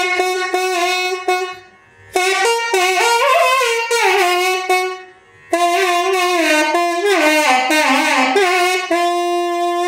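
Nadhaswaram playing a melody with sliding, bending ornaments in three phrases broken by two short pauses, ending on a long held note.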